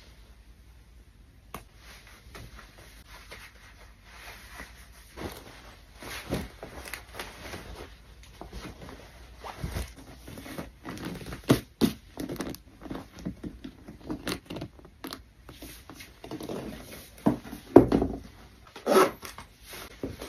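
Handling noises as a pair of snakeskin-print Chelsea boots is handled and put on: rustling and scraping with scattered knocks and thumps. They start faint and get louder after about five seconds, and the heaviest thump comes a couple of seconds before the end.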